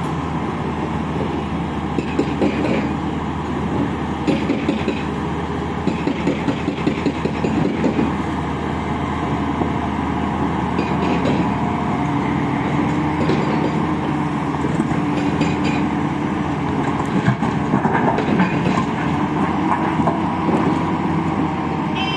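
Tata 650 excavator's diesel engine running steadily under working load, with a steady whine that rises slightly in the second half and scattered knocks and rattles from the stone being loaded.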